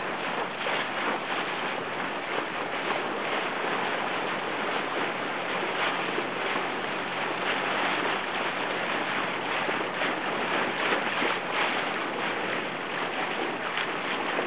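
Steady rush of wind and water on open water around a racing sailing dinghy, broken by many short irregular splashes.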